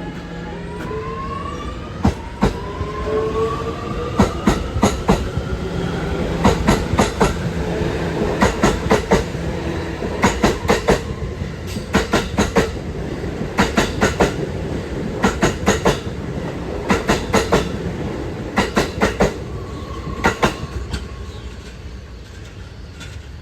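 New York City subway train pulling through the station: the traction motors whine, rising in pitch as it picks up speed. The wheels click over the rail joints in quick clusters about every second and a half, fading near the end.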